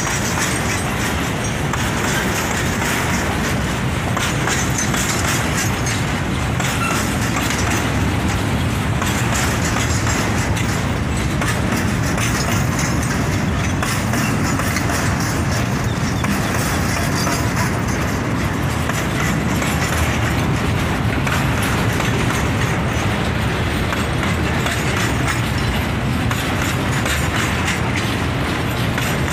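Freight train wagons, covered boxcars and hoppers, rolling past close by: a steady rumble and rattle of steel wheels on the rails.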